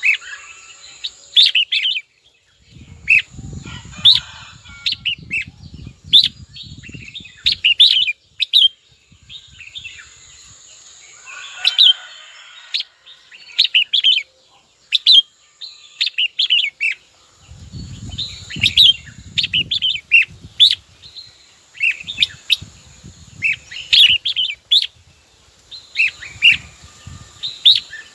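Red-whiskered bulbul calling and singing in short, bright chirping phrases repeated every second or so, with a low rumble underneath twice.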